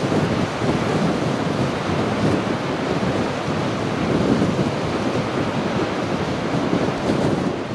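Heavy surf breaking over and around a rock-and-timber jetty and washing up the beach: a continuous, loud rush of crashing waves and swirling water.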